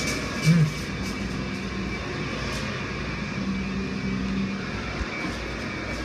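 Automatic car wash heard from inside the car: cloth brushes spinning against the body and water spraying over it in a steady rushing wash. A short, louder low burst comes about half a second in.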